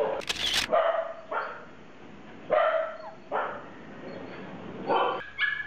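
Several puppies yapping behind a kennel fence: short, high barks and yelps, one every second or so. A brief scratchy rasp comes right at the start.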